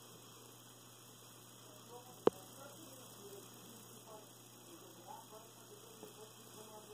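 Faint steady electrical hum, broken once by a single sharp click about two seconds in.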